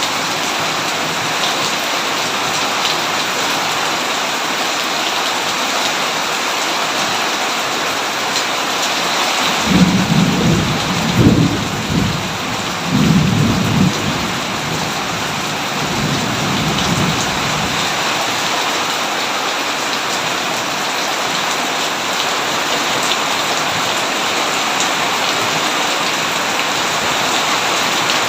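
Steady heavy rain hissing, with a roll of thunder rumbling in about a third of the way through, peaking in a few loud swells and dying away over about seven seconds.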